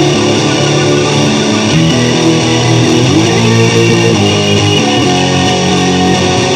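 Guitar playing loud, sustained strummed chords, the chord changing a few times.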